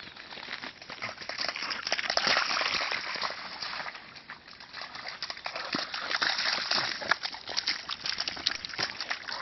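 A Tamaskan dog splashing and sloshing through a shallow muddy ditch, with irregular splashes that swell about two seconds in and again around six seconds.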